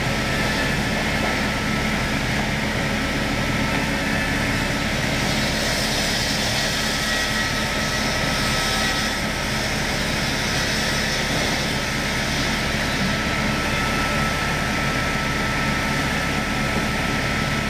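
Woodworking machine running steadily under load as timber is fed through its cutters: a continuous mechanical noise with a thin steady whine running through it.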